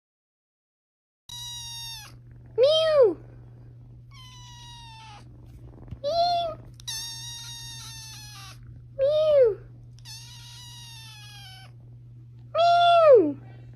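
A cat meowing: four loud calls, each rising and falling in pitch, about three seconds apart, with longer, softer drawn-out mews in between. A steady low hum runs under them once the sound starts about a second in.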